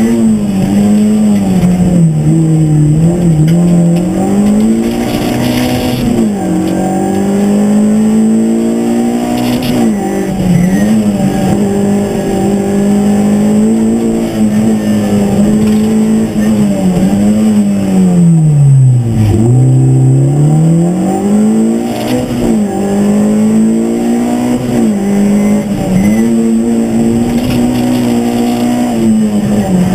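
Škoda Fabia rally car's engine heard from inside the cabin at full stage pace. The revs rise and fall over and over with throttle and gear changes, and the note sinks lowest about two-thirds of the way through before climbing again.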